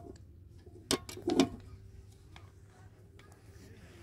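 A few sharp clicks and knocks about a second in, the loudest just under a second and a half in, followed by a faint steady hum.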